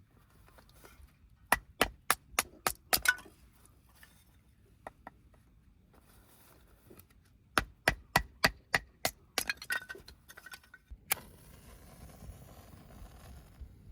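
Two runs of sharp, quick knocks, six or seven strokes each at about four a second, with a slight ring to them. One harder knock comes near the end, followed by a soft rushing noise.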